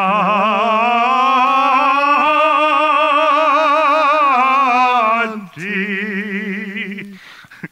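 A single voice singing opera-style in Italian, holding one long note with wide vibrato that creeps slightly upward in pitch for about five seconds, then a shorter, lower note that stops about seven seconds in.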